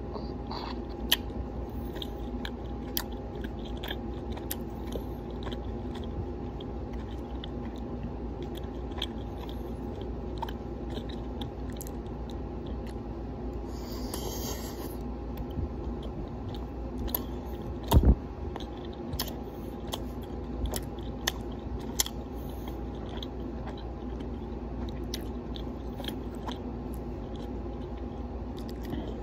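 Steady low hum of a small tiled room, with scattered small clicks and crunchy sounds, a short hiss about 14 seconds in, and a sharp knock about 18 seconds in.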